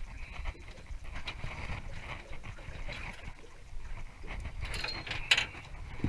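Wind rumbling on the microphone aboard a small aluminium boat, with small clicks and taps from handling fishing gear and one sharp knock about five seconds in.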